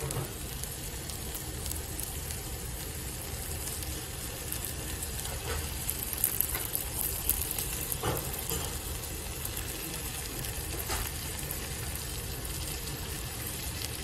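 Hamburg steak sizzling and crackling steadily on a hot iron sizzle plate, its meat juice running out onto the hot metal as it is cut open, with a few faint clicks.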